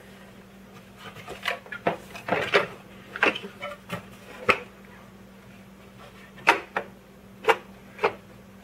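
Hard plastic housing of a digital shipping scale clicking and knocking as it is handled and turned over on a table: a dozen or so short, irregular clacks, bunched in the first half and a few spaced out near the end.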